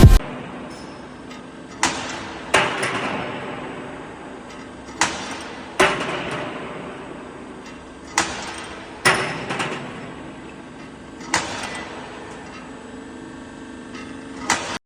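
D10-20 wire drawing and cutting machine running with a steady hum, broken by sharp metallic clacks that ring on briefly. The clacks come mostly in pairs about every three seconds, the rhythm of the cutter chopping the drawn wire to length.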